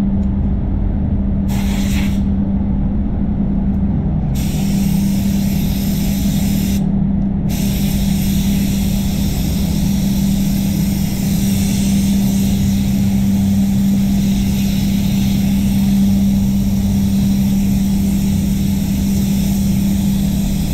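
Spray booth fans running with a steady low hum. A high hiss cuts in briefly about a second and a half in, again from about four seconds, and stays on from about seven and a half seconds.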